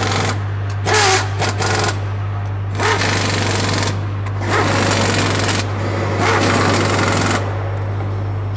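Pneumatic impact wrench hammering in about five short bursts as it runs bolts down on an engine mounting, with a steady low hum underneath.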